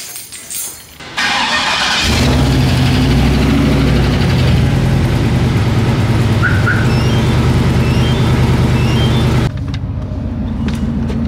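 Turbocharged 2001 Chevy Silverado V8 starting from cold: a short crank about a second in, then the engine catches and runs steadily to warm up. It drops to a quieter note near the end.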